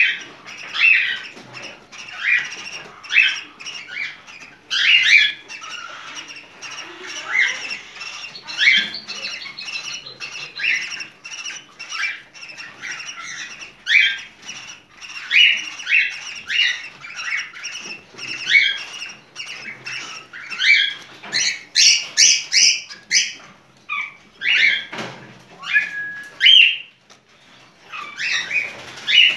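Cockatiel giving short, repeated chirping squawks, about one or two a second, with a quicker run of calls a little past two-thirds through. This is its breeding-season calling, the bird in heat.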